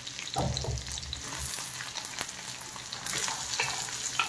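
Garlic and sliced green chillies sizzling in hot oil in a kadhai. There are dull knocks, and the sizzle grows louder near the end as sliced ivy gourd (kundru) is slid from a wooden board into the pan.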